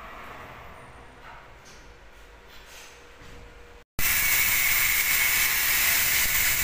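Faint room tone, then after a sudden cut about four seconds in, a loud steady hissing noise with a high, even rush.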